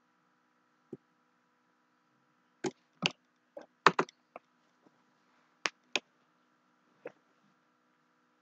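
A string of sharp clicks and knocks, about a dozen, coming irregularly and bunched in the middle with the loudest near the middle, over a faint steady hum.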